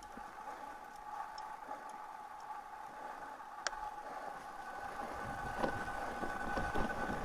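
Mountain bike rolling along a dirt and snow trail. Tyre and wind noise grows louder over the second half as it picks up speed, under a faint steady whine, with a single sharp click near the middle.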